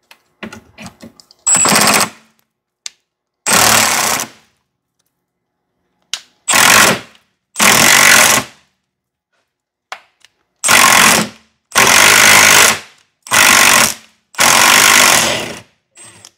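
Impact wrench hammering in about eight short bursts, each a second or so long with pauses between, on a rusted, seized bolt. It is being worked back and forth to free the bolt without snapping it.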